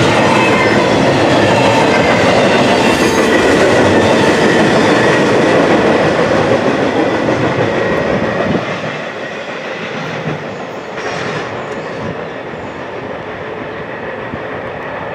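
Freight cars of an intermodal container train rolling past on steel wheels. About eight and a half seconds in the last car goes by and the sound drops to a quieter, steady rumble of the train moving away.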